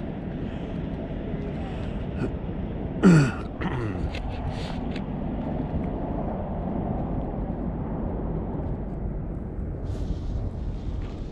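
Wind rumbling on the microphone, with one short loud sound about three seconds in whose pitch drops steeply.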